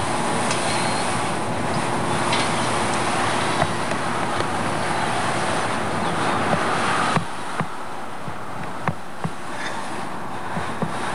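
Wind rushing steadily over the camcorder microphone, with scattered sharp clicks; the rush drops somewhat about seven seconds in.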